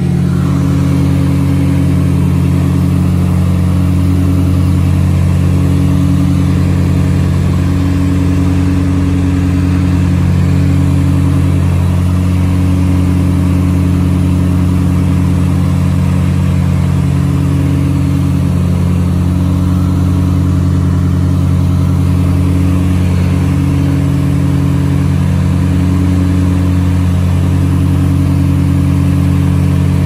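Twin piston engines and propellers of an Aero Commander L-26B in steady cruise, heard from inside the cockpit: a loud, even drone of several low tones, one of which swells and fades in a slow, regular pulse every couple of seconds.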